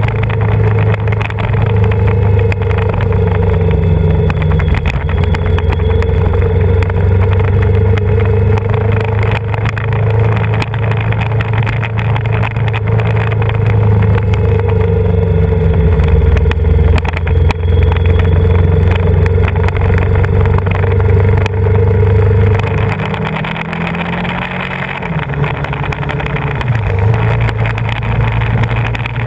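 Yamaha VMAX 1700's V4 engine running steadily under way, with wind and road noise. A little over twenty seconds in the engine note changes and dips for a few seconds before settling again.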